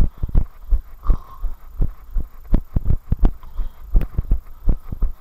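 Running footfalls close to the microphone: steady low thuds, about three a second, at a running pace on a paved path.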